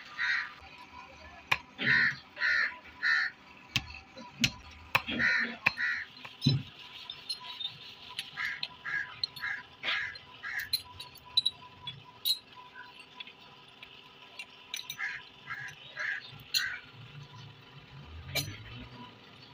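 Crows cawing in repeated runs of three to five calls, with sharp metallic clinks from loose steel pieces being handled.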